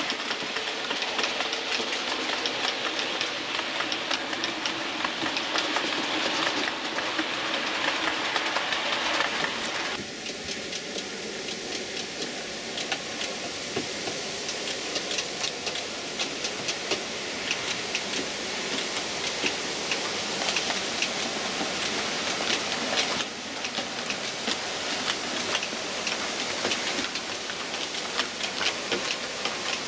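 Model train running on its track: a model steam locomotive hauling Pullman coaches, wheels rattling with a rapid run of fine clicks over the rail joints and a steady hiss of rolling.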